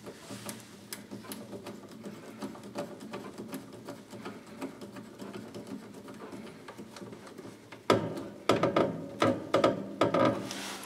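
A screwdriver working a screw terminal on an electrical terminal block, making a string of small quick clicks and scrapes. About eight seconds in, the clicking grows louder and denser for a couple of seconds.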